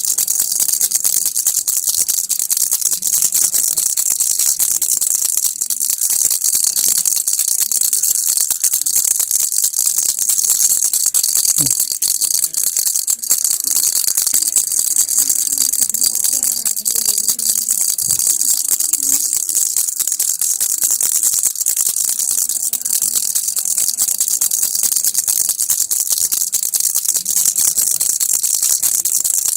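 Baby rattle shaken without a break: a dense, steady, fast rattling that sounds bright and hissy.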